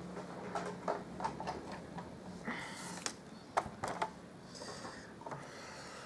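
A Big Shot die-cutting machine being brought out and set in place on a wooden craft table: a scattering of light knocks and clicks, with two short scraping slides, one a little over two seconds in and one about four and a half seconds in.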